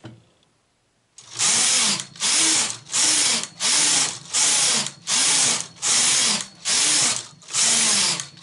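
Domestic flatbed knitting machine knitting plain rows, its carriage pushed back and forth across the needle bed. Each pass gives a rasping whir, with a brief dip as the carriage reverses at each end. The passes start about a second in and come about ten times, each just under a second long.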